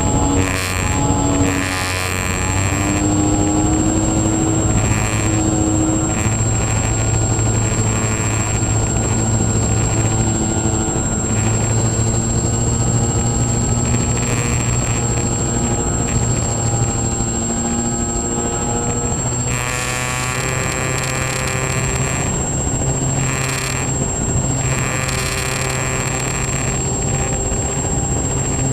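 Twin electric motors and propellers of a Multiplex Twin Star model plane running in flight, picked up by the onboard camera, with air rush. A steady low hum sits under several tones whose pitch drifts up and down, with a thin high whine throughout and a noisier, rougher stretch from about two-thirds of the way in.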